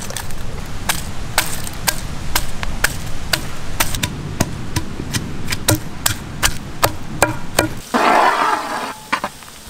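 Long wooden pestle pounding ginger and garlic in a stone mortar: sharp knocks at a steady two or so a second. Near the end it gives way to a brief sizzle of sliced onions frying in oil.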